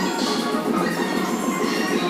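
Background music with bright, steelpan-like melodic tones over a steady beat.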